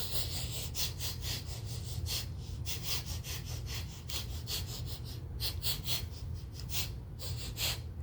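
Lion sniffing: a run of short, quick sniffs, about three a second, some bunched in quick clusters, over a steady low hum.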